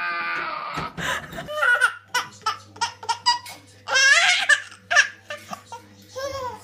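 A woman laughing heartily for about the first second, then a baby laughing in short bursts of giggles, loudest about four and five seconds in, over a low steady hum.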